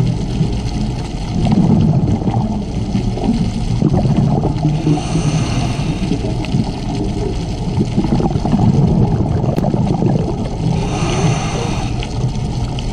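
Underwater sound of a scuba diver breathing through a regulator: a steady low rumble of water on the camera housing, with the exhaled bubbles gurgling up twice, about halfway through and near the end.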